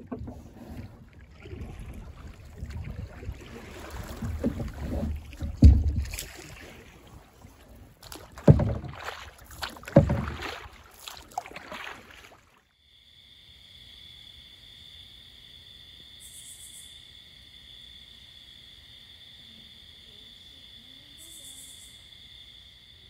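Canoe being paddled across open water: splashing and water noise with a few loud thumps, about six, eight and a half and ten seconds in. About halfway through it cuts to a faint, steady high-pitched hum.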